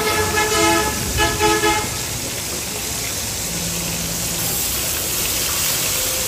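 A vehicle horn honks on a steady chord of several pitches: a held blast, a short break, then a shorter blast that ends about two seconds in. After it comes a steady background of traffic noise, with a brief low hum in the middle.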